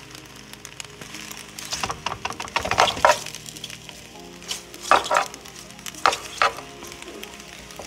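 A spatula stirring cooked penne and a block of butter in a hot pan, with a light sizzle. The scraping strokes come in clusters, about two to three seconds in and again around five and six seconds, over steady background music.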